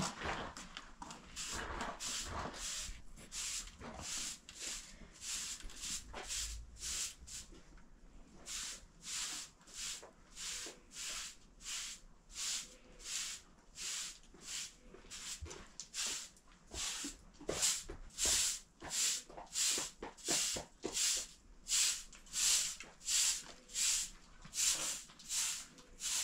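Rapid, heavy breathing close to the microphone, a short rush of breath about one and a half times a second, growing louder in the second half.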